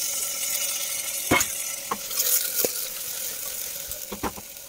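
Raw mutton pieces sizzling in hot mustard oil and onions in an aluminium pressure cooker, loud at first and fading over a few seconds as the meat starts to fry. A few knocks of a utensil on the pot come through the sizzle.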